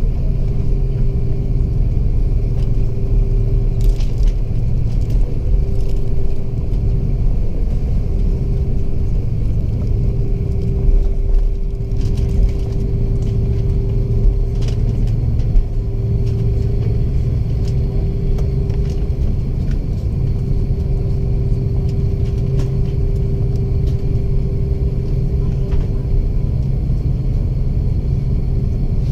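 Airbus A330 cabin noise from a window seat with both engines running: a steady low rumble with a constant hum above it and a few faint clicks.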